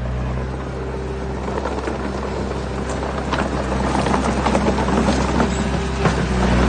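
Heavy diesel engine running steadily, with a dense clattering that builds from about a second and a half in and a single sharp knock near the end.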